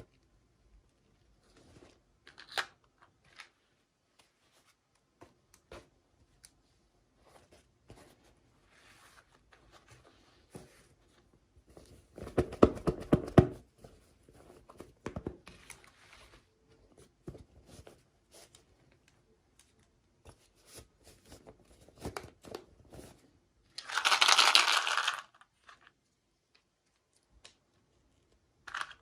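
Toy packaging being handled and opened by hand: scattered small clicks and rustles, a burst of rapid clicking about twelve seconds in, and a short tearing sound a little past halfway.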